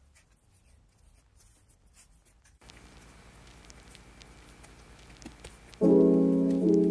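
Faint soft patting and scraping of hands pressing crumbly scone dough flat in a plastic bowl. Loud piano music comes in about six seconds in.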